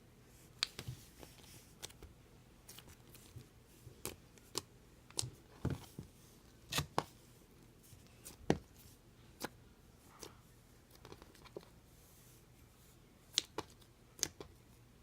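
Slime being squeezed and poked by hand, giving irregular sticky clicks and pops, some sharper and louder than others.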